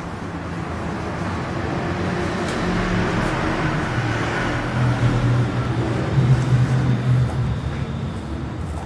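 Steady low rumble and rushing noise of a running engine, swelling louder through the middle and easing off near the end.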